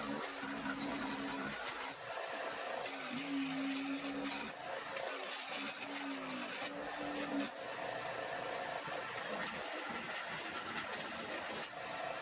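Mastercraft 4 x 36 inch belt-and-disc sander running steadily, its motor humming, while the rough cut edge of a steel bar is ground smooth against the sanding disc.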